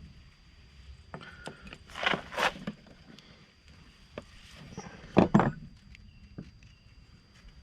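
Knocks and clicks of rigging cable and a copper swage ferrule being handled and pulled tight by hand: two close pairs of sharp knocks, about 2 and 5 seconds in, with lighter clicks between.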